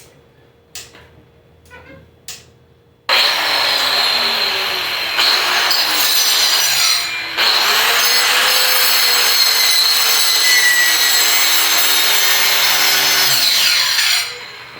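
Electric circular saw cutting firewood. After a few light knocks, the saw starts about three seconds in and runs loud with a steady high whine, dipping briefly twice, then winds down near the end.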